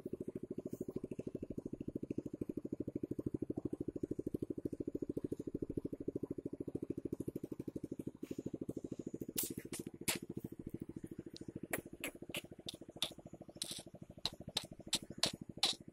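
A small engine running steadily with an even, rapid chugging. From a little past halfway, footsteps crunch on gravel over it.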